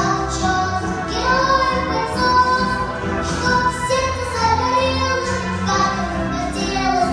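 A solo voice singing a song with instrumental accompaniment.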